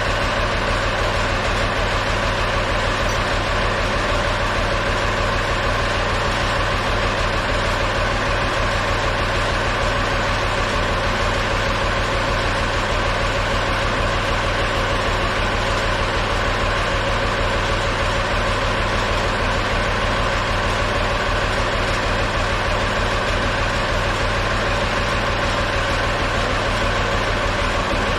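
Tractor engine running at a steady idle, with no change in speed.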